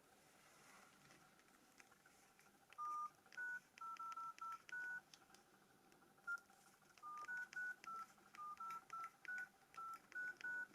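Nokia E90 keypad tones: keys pressed in two quick runs, each press giving a short two-tone dialing beep with a faint key click.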